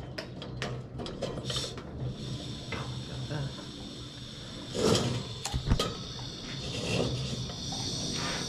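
Campy Gear 2-in-1 portable propane heater-stove fed from a 1-lb propane cylinder: a run of clicks as the valve and knob are worked, then a steady gas hiss from the burner that comes in about two seconds in. A couple of knocks about five seconds in.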